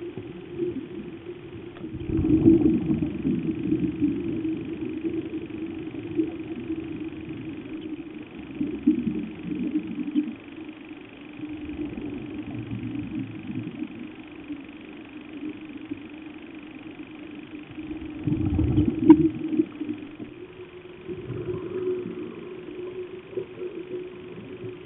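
Underwater sound: a steady low hum with rumbling bursts of scuba exhalation bubbles every several seconds, the loudest about two seconds in and near nineteen seconds.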